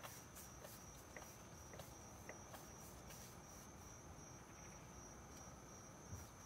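Faint outdoor insect chirping, like crickets: a steady high trill with regular pulses.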